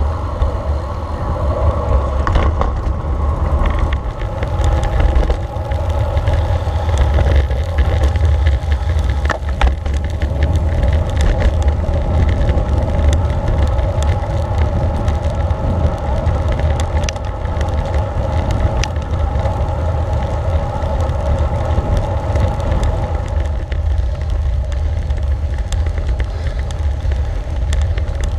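Road bicycle being ridden, with steady rolling noise from the tyres and drivetrain. Wind buffets the camera's microphone, giving a constant low rumble.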